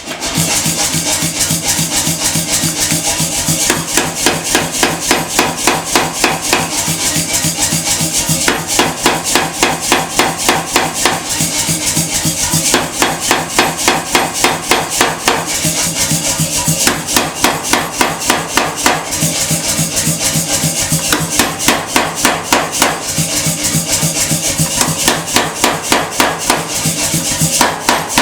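Hammer blows on steel at the forge, struck in a fast, steady rhythm of roughly three loud blows a second.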